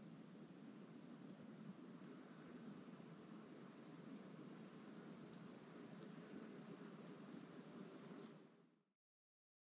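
Faint woodland ambience: insects trilling in one steady high unbroken tone over low background noise. It fades out near the end.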